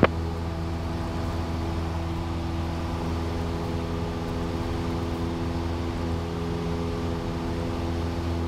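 Cessna 172's piston engine and propeller running steadily in flight, heard inside the cabin as an even, low drone.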